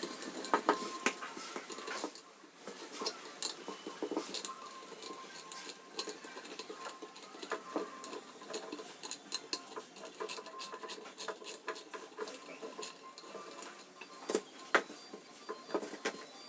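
Hand work on metal parts: irregular sharp metallic clicks, taps and scrapes, coming several a second.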